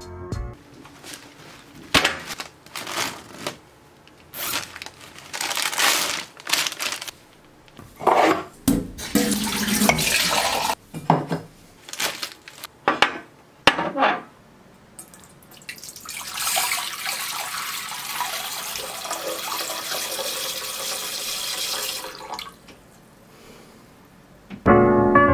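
Dry rice being scooped from a sack with a mug and poured, heard as a series of short rattling, rustling pours and knocks. Later, water runs steadily for about six seconds as the rice is rinsed in a glass bowl.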